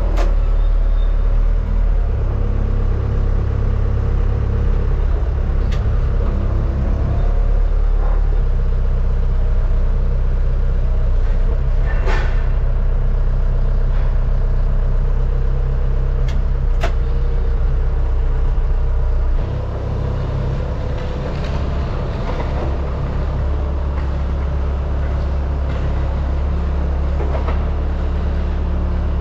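A telehandler's diesel engine running steadily with a deep hum, heard first from inside its cab, with a few sharp knocks in the middle. About two-thirds of the way through, the sound changes and the engine is heard from outside the machine.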